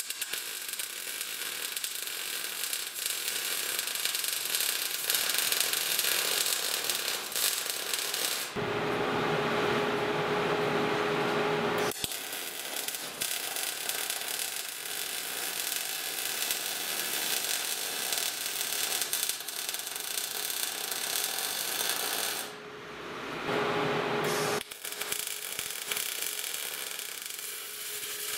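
MIG welder arc crackling and hissing as steel filler plates are welded to a propeller shaft tube, in long runs. The crackle stops twice for a few seconds between runs, leaving a steady hum.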